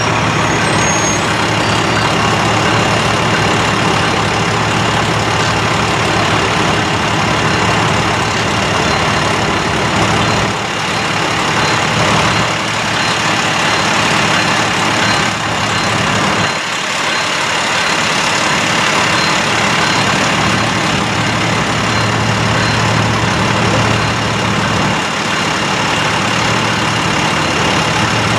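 Diesel freight locomotives approaching a grade crossing: a steady low engine hum under a constant rushing noise, growing somewhat louder near the end.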